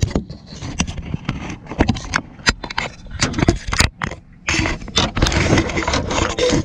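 Irregular clicks, knocks and scraping of fishing gear being handled close to the microphone, with a rustling stretch about two-thirds of the way through, over a low steady hum.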